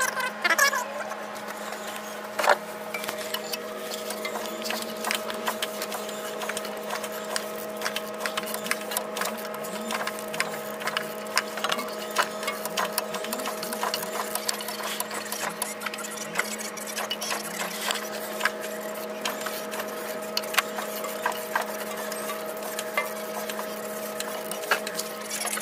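Ratchet wrench clicking in short irregular runs as the engine is turned over by hand at the crankshaft to bring the valves into position for adjustment, over a steady hum.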